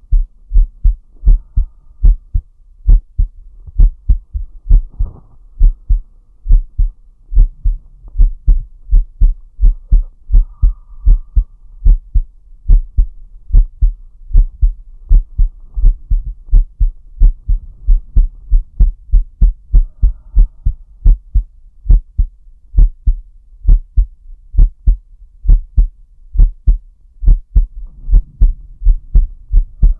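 A man's heartbeat, heard close up as a steady run of deep lub-dub thumps.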